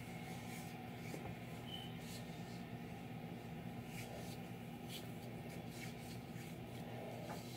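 Faint rubbing of skin on skin as hands spread moisturising lotion over bare forearms and hands, with a few soft ticks, over a steady low hum.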